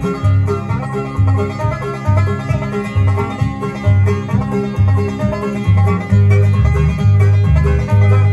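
Bluegrass band recording: a banjo picking the lead over guitar, with a bass line keeping a steady beat of about two notes a second.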